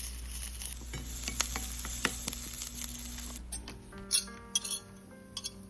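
Chopped onion, garlic and ginger sizzling in olive oil in a pan, with sharp clicks of a spoon as it is stirred. About three and a half seconds in the sizzle cuts off and soft background music takes over, with a few clinks of utensils.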